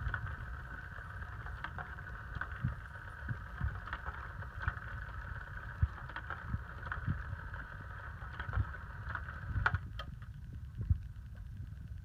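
Pounce electronic cat toy's motor whirring steadily, with scattered light knocks and taps on its plastic cover; the whine cuts off suddenly near the end, leaving a low rumble and knocks.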